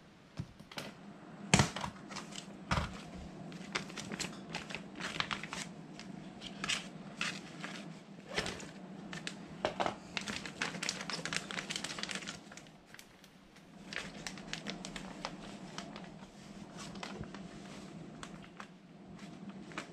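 Clear plastic vacuum-sealer bag crinkling and rustling in the hands as apple slices are put into it, in irregular crackles. Two sharper knocks come about two seconds in.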